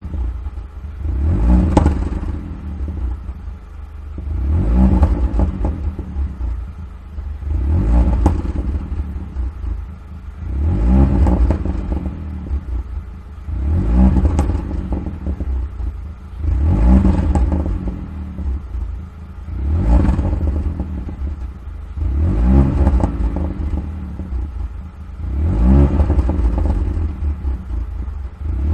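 Volkswagen Vento TSI revved repeatedly from idle through a decat downpipe, resonator-deleted exhaust and Borla Pro XS endcan. There are nine rev blips, about one every three seconds, each rising and falling in pitch, with exhaust crackles and pops as the revs drop.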